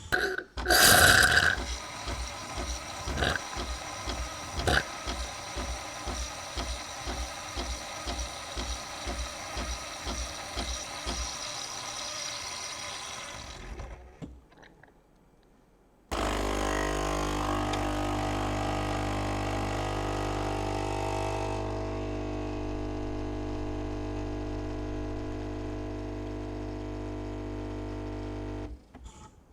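Nespresso De'Longhi capsule machine making a cappuccino. First its pump pulses about twice a second under a hiss as milk is frothed, stopping about 14 seconds in. After a short pause the pump hums steadily while coffee is dispensed, cutting off near the end.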